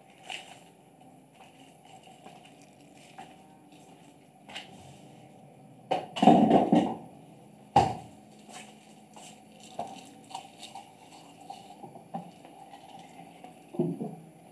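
Kittens eating from a clear plastic food tray on the floor: scattered small clicks and taps of chewing and of the tray. A louder bump about six seconds in and a sharp knock just before eight seconds.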